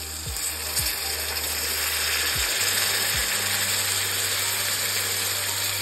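Water poured into a hot kadhai of frying pumpkin pieces and masala, hissing and crackling as it hits the hot oil. The sizzle builds over the first second or two, then holds steady and loud.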